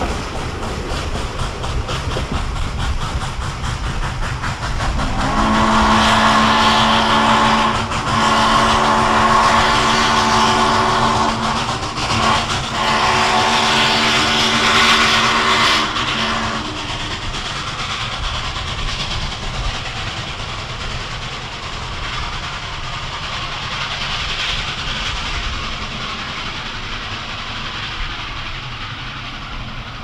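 Steam locomotive whistle blowing a long signal broken into separate blasts, over the steady running noise of a moving train. The train keeps running after the whistle stops, about two-thirds of the way through.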